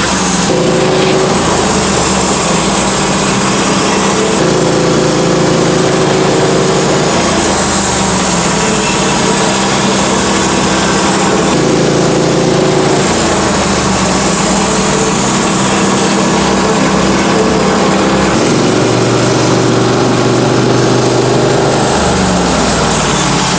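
Sawmill engine running steadily, its pitch stepping up and down several times.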